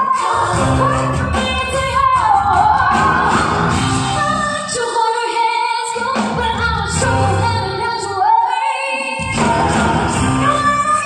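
A female vocal group singing a pop song live with a band of drums, bass guitar and keyboards. The bass and drums drop out twice for about a second, leaving the voices over thinner backing.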